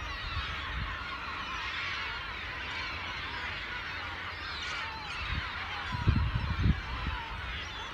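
A flock of gulls calling over one another in a dense, continuous clamour while they dive for fish. A few loud low thumps on the microphone come about six seconds in.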